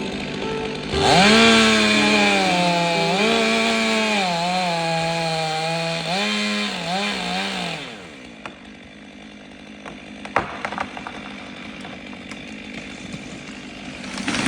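Gas-powered saw engine revving up about a second in and cutting, its pitch dipping and recovering under load for about seven seconds before dropping off. A few knocks follow in the quieter part.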